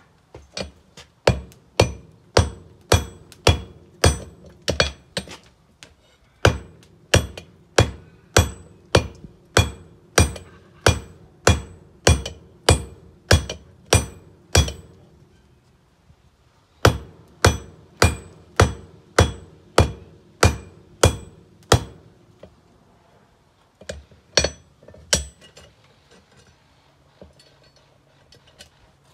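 Hand hammer striking on a 66 lb cast-steel anvil, about two blows a second in steady runs broken by short pauses, each blow with a brief high ring; a few single strikes near the end.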